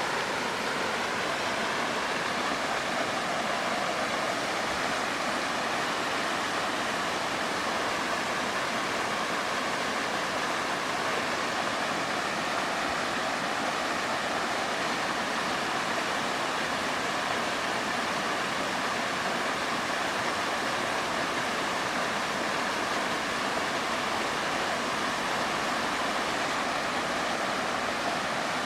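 Waterfall rushing steadily, an even roar of falling water that does not change.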